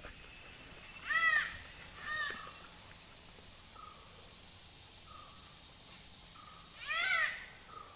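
Crow cawing three times: twice close together about a second in, then once more near the end.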